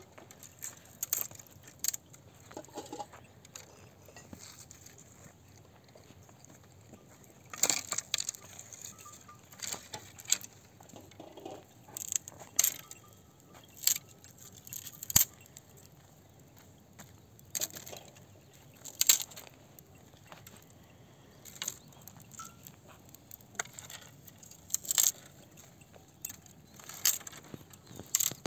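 Dry branches being snapped by hand for firewood: a series of sharp cracks at irregular intervals, some in quick clusters, with quiet gaps between.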